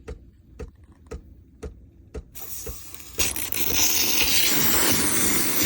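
Breville Barista Express BES870XL espresso machine ticking about twice a second as it heats for steam. About two seconds in, its steam wand starts hissing, and from about three seconds it is purging steam and water at full, loud force.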